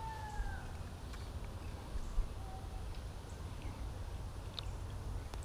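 Small clicks and handling noises as a small largemouth bass is unhooked by hand, over a low rumble on the microphone. A bird gives a short falling call at the start and a brief note about halfway through.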